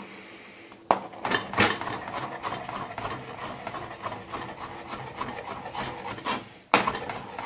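Chef's knife chopping smoked tofu into small dice on a plastic cutting board: quick repeated knife strokes tapping and scraping on the board. They start about a second in with a sharp knock, and there is another sharp knock near the end.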